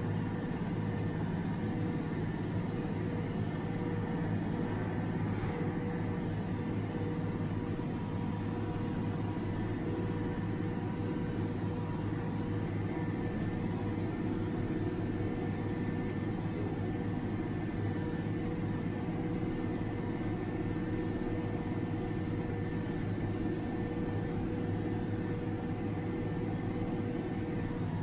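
Tractor engine running steadily under load as it pulls a wide tillage disc through stubble, heard from inside the cab as an even drone with a constant hum.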